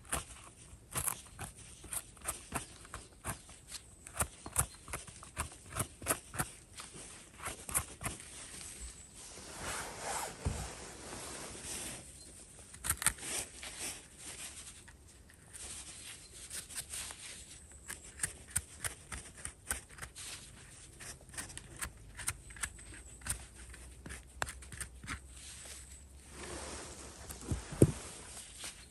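Footsteps crackling over the forest floor, a string of short, uneven steps about two or three a second, with a couple of brief rustles among them.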